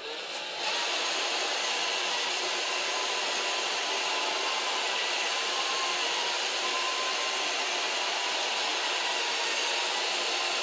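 iRobot Roomba robot vacuum starting a Spot clean: its vacuum motor and brushes come up to speed under a second in, then run steadily with a faint whine.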